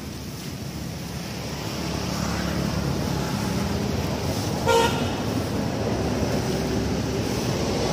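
A motor vehicle running nearby, its noise growing louder, with a single short horn toot about halfway through.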